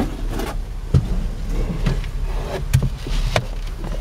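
Knocks and rustling of someone climbing into and settling in a John Deere 4440 tractor cab: a few sharp knocks against the cab's steps, door and frame, over a steady low hum.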